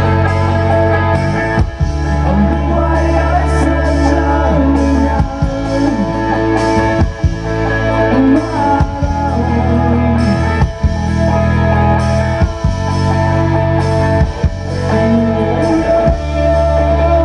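Live rock band playing loud, with a singer, guitar and heavy bass.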